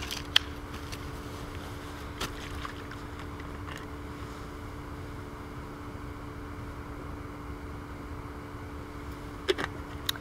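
Steady low rumble and hiss with a faint constant hum, broken by a few sharp clicks, one shortly after the start, one about two seconds in and a couple near the end.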